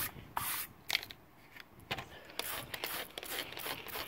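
A last wire-brush scrub on a rusty steel panel right at the start, then, from a little past the middle, a run of short hissing squirts from a hand trigger spray bottle of liquid rust remover.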